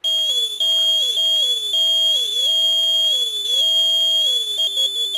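Passive piezoelectric buzzer, driven by a homemade oscillator through a mains-filter transformer, starts suddenly and sounds loudly: a piercing steady high tone over a lower warbling tone that repeatedly slides down and back up. About four and a half seconds in, the lower tone switches to a rapid back-and-forth between two pitches, an alarm-like pattern carried from the colour-changing LED's signal.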